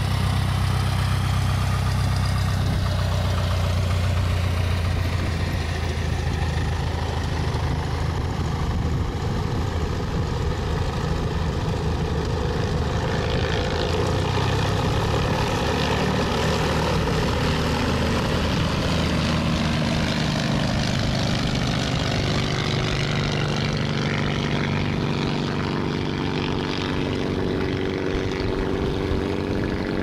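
Hummel Bird light aircraft's engine and propeller at takeoff power through the takeoff roll, lift-off and climb-out, a steady engine drone whose pitch shifts in the second half as the plane moves away.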